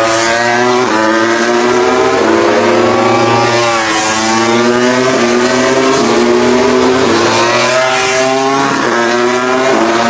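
Several MotoGP bikes' four-cylinder engines held at high revs on the starting grid, their pitches holding steady and shifting in steps, with rising revs about four and eight seconds in.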